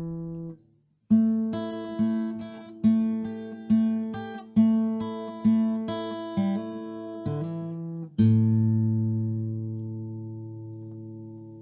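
Outro music: an acoustic guitar strumming chords in a steady rhythm, ending on a last chord that rings out and fades.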